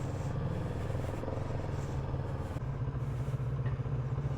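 Kawasaki Z650RS's parallel-twin engine running steadily under way, with road and wind noise; the engine note shifts about two and a half seconds in.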